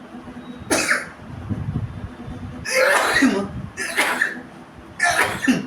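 A person sneezing four times in quick succession, about a second apart, the sneezes set off by something pushed into the nose.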